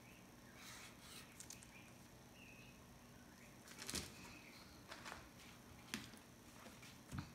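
Faint scratching of a felt-tip pen on tracing paper and light rustling of the paper, with a louder brush of paper about four seconds in and two small clicks near the end.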